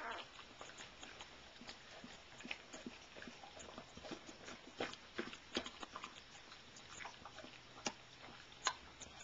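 Mother dog licking and cleaning a newborn puppy: irregular wet licking and smacking clicks, with a couple of sharper smacks near the end.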